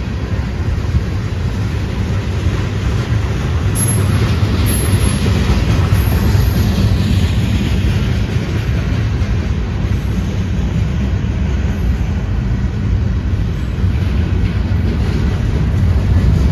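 Mixed freight train cars (tank cars, covered hoppers and boxcars) rolling past at speed: a loud, steady rumble of steel wheels on the rails.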